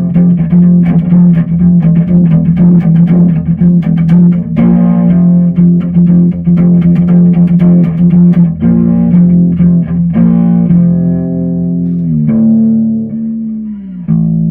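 Ibanez SRH505F fretless five-string acoustic-electric bass being played: plucked notes and chords ring over a held low note, with gliding slides in pitch about twelve and fourteen seconds in.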